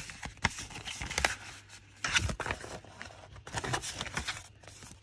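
Paper and card being handled as a card envelope is opened and sheets of stickers are slid out. It comes as rustling, sliding and light scrapes with scattered small clicks, in short spells, loudest about two seconds in and again near four seconds.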